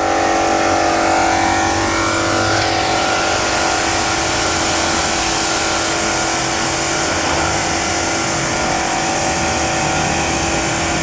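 Electric pressure washer running steadily: an even motor-and-pump whine over the hiss of its water jet spraying the concrete.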